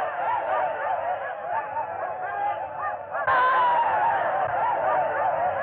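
A crowd of men yelling and whooping in many overlapping voices, as in a battle charge, with a sudden jump in the sound about three seconds in. The recording is thin and old, with no low end.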